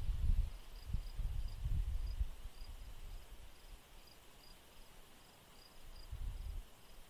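Crickets chirping in short, regularly repeated high pulses over a faint steady hiss of insects. Low rumbling gusts of wind buffet the microphone in the first two seconds and again near the end.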